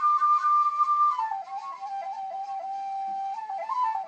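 Solo flute playing a slow melody: one long held note, then about a second in it drops to a lower note and moves in small steps up and down around it.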